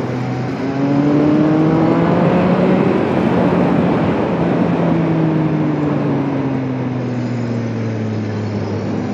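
Sport motorcycle engine pulling hard with engine pitch rising, a gear change about three seconds in, then the revs falling steadily over the last four seconds as the throttle is rolled off, over steady wind rush.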